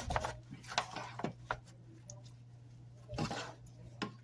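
A spoon knocking and scraping against a pan as cooked elbow noodles are spread in it: several light knocks in the first second and a half, then another scrape and knock near the end.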